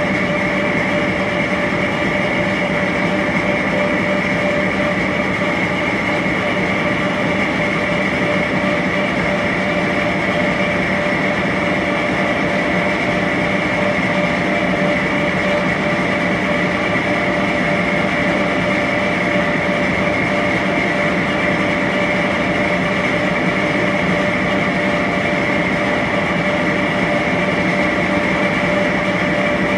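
1A501 machine tool running steadily on a test run after repair: a continuous mechanical running noise with a steady, high-pitched whine.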